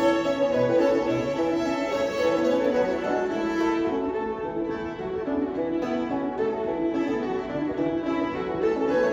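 Two fiddles and a banjo playing an old-time fiddle tune, with long bowed fiddle notes carrying the melody and no break.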